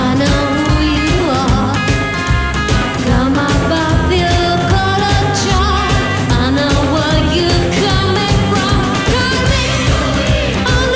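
Rockabilly band playing a song: a lead vocal sung over a steady drum beat and bass.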